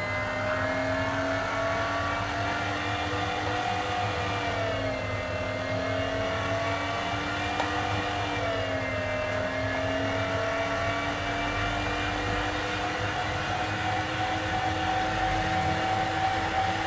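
Electric meat grinder's motor running steadily under load as it forces stiff cheese dough through the mincing plate, a steady hum whose pitch dips briefly a couple of times.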